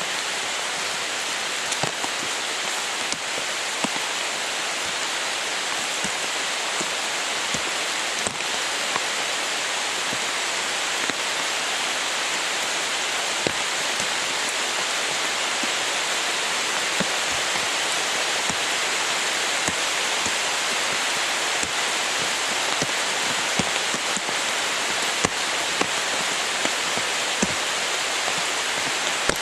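Steady rain, a constant hiss with scattered individual drops ticking close by.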